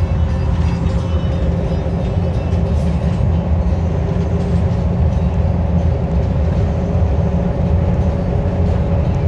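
School bus driving at road speed, heard from inside the passenger cabin: a steady, loud low rumble of engine and road noise with a faint, even whine.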